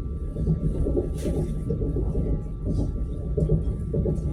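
Commuter electric train running along the line: a steady low rumble of wheels on rails, with a faint steady high tone over it.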